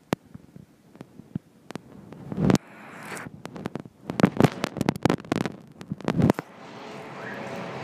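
Handling noise on a handheld camera's microphone: sparse clicks, then a dense run of loud crackling clicks and knocks from about two and a half seconds in, stopping abruptly near the end. A steady rushing noise then rises.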